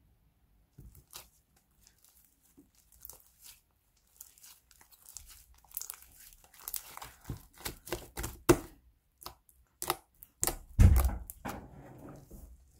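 Purple glitter slime being stretched, squeezed and poked by hand, giving a run of sticky clicks and pops that grows busier from about halfway. A louder, deeper squish comes near the end.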